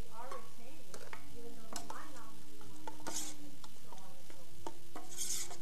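Risotto being stirred in a saucepan on the stove: a utensil scraping and clinking against the pan, with two short bursts of hiss about three and five seconds in.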